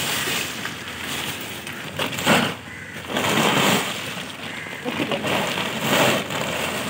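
Dried coconut pieces (copra) clattering and rustling as they are poured out of a woven plastic sack onto a plastic tarpaulin, in a few surges, with the sack crinkling.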